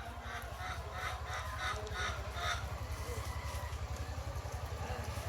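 Chickens giving a quick series of repeated clucks, about three a second, that stops about halfway through, over a steady low rumble.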